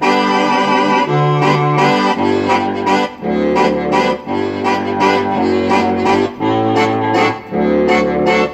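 Yamaha workstation keyboard playing a banda-style sample: accordion- and brass-like chords in short rhythmic stabs over a low bass line that changes note about once a second.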